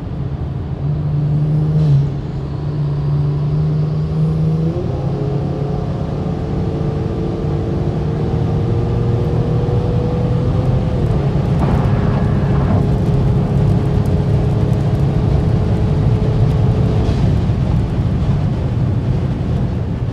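Kia Stinger GT's twin-turbo V6 pulling hard at highway speed, with road and wind noise heard from inside the cabin. The engine note climbs slowly and drops back at upshifts about 11 and 17 seconds in.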